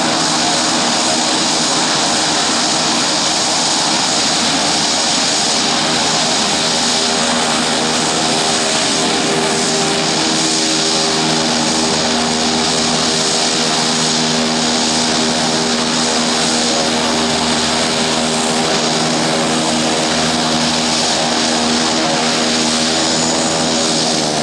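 Beechcraft King Air twin turboprop taxiing past, its two turbine engines and propellers running with a steady drone and high whine. The pitch sags slightly near the end as it moves on.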